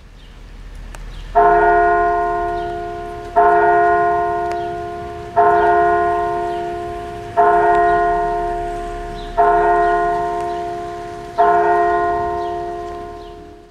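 A large tower bell strikes six times, evenly about two seconds apart. Each stroke rings on and fades, like a clock tolling the hour.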